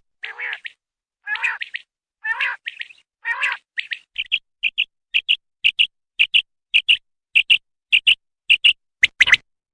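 Common quail calling: a few rough, lower calls in the first few seconds, then a fast, even run of short, clear, high double notes, nearly two a second.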